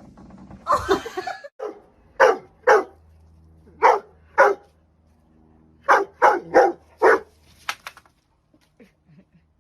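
A dog barking in short runs: a longer bark near the start, then two pairs, then four quick barks.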